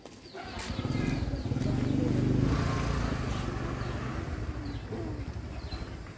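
A motor vehicle passing by: an engine swells over about two seconds, then slowly fades away. A few bird chirps sound over it.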